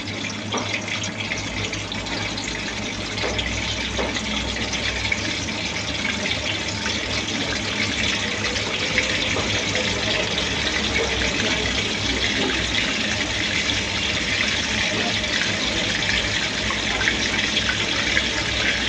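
Chicken potli deep-frying in hot oil: a steady sizzling hiss with fine crackles, growing a little louder as the oil temperature is raised.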